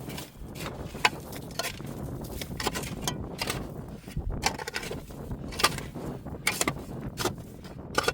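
Irregular knocks, cracks and crunches, several a second, over a low steady rumble.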